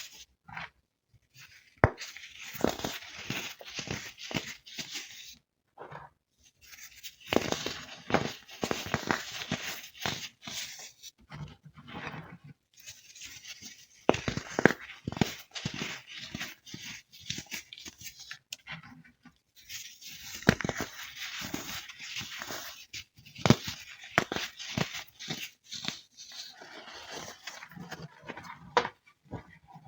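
Crisp crunching and crackling of baked baking soda chunks being crushed and broken. It comes in about four stretches of several seconds each, with short pauses between them.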